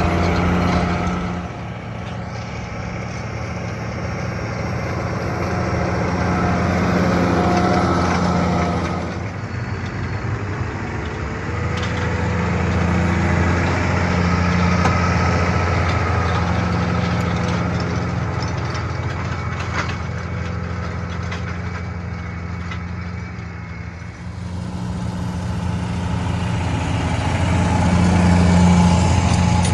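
Claas Axion 850 tractor's six-cylinder diesel engine running steadily under load while pulling a soil cultivator. Its deep hum swells and fades as the tractor passes, with a few sudden jumps in level.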